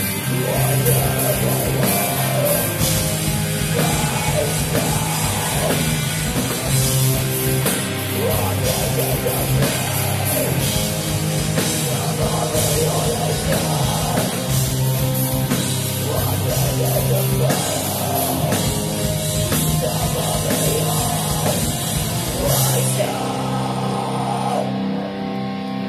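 A post-black metal band playing live: pounding drums and cymbals under heavy distorted guitars and bass, with a singer's vocals. Near the end the drums stop and the guitar rings on alone.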